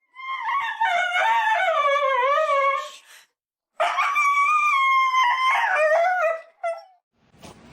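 A dog howling: two long howls of about three seconds each, wavering up and down in pitch, with a short break between.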